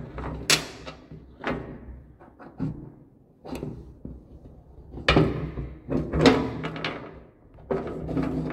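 Scattered metal clicks and knocks of a steel G-clamp being handled and its screw wound, pressing a new bearing into a motorcycle suspension dog bone that keeps going in crooked.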